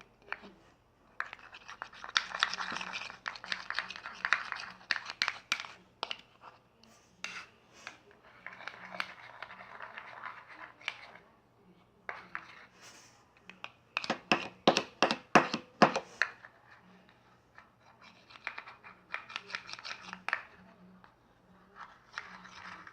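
A comb scraping and clicking against the inside of a small pot as it stirs a thick slime mixture of hair cream and detergent. It comes in several bouts, with a run of sharp, rapid clicks about two thirds of the way in.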